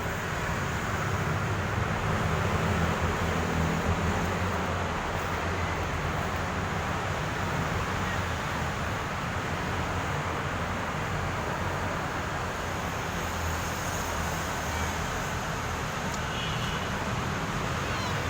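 Steady outdoor background noise with a low rumble, like road traffic.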